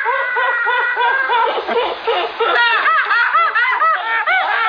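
A woman laughing hard and uncontrollably in rapid repeated bursts. At first a long high squeal sits over the laughing; from about half-way the bursts come faster and higher-pitched.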